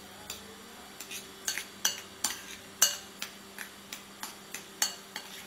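Steel spoon stirring and mashing chopped boiled egg with mayonnaise in a bowl, the spoon clinking against the bowl about three times a second from about a second in. A faint steady hum lies underneath.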